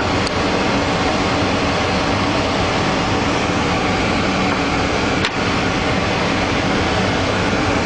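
Steady loud hiss, with two brief clicks, one just after the start and one about five seconds in.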